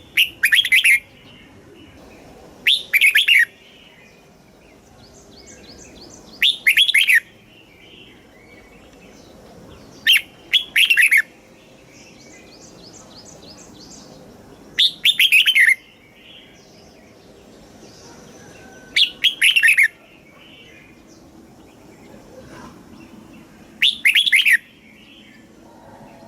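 Red-whiskered bulbul singing: seven short, loud phrases of quick falling whistled notes, each about a second long, repeated every four seconds or so, with faint softer chirping between them.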